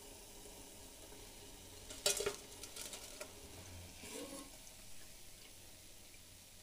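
Hot oil sizzling quietly as fried potato balls are scooped out with a steel slotted ladle, with a sharp metal clatter of the ladle about two seconds in and a few lighter clinks after it.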